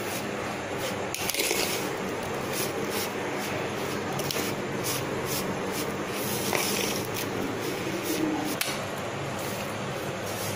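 Hand mixing cooked ragi vermicelli with grated coconut and sugar in a plastic plate: soft, irregular rustling and squishing with light scrapes.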